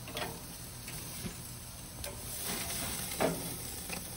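Steaks sizzling on a hot barbecue grill, a steady hiss, with a few clinks of metal tongs against the meat and grate. The loudest clink comes a little past three seconds in.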